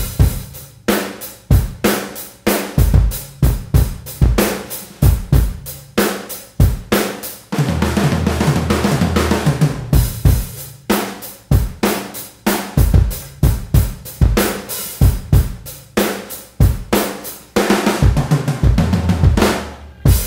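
Rock music: a drum kit beating out a steady rhythm on snare, bass drum, hi-hat and cymbals, over a low bass-guitar line that swells about a third of the way in.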